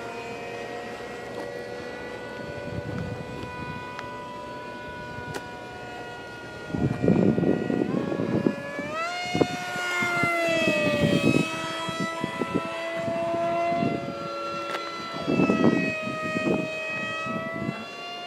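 Electric-powered RC foam jet plane's motor whining as it flies overhead. The whine's pitch jumps up sharply about nine seconds in, then slowly sags and wavers. Two bursts of low rumbling noise come about seven and fifteen seconds in.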